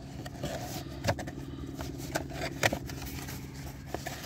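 Cardboard filter box being opened by hand: the flaps scrape and click a few times. A steady low hum runs underneath.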